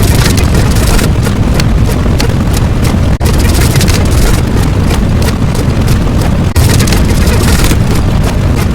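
Loud, continuous rumbling roar, heaviest at the low end, with two brief dips about three and six and a half seconds in.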